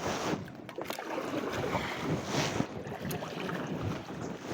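Water splashing and rushing around a kayak moving down a river, with two louder swells of splashing, one near the start and one about halfway through.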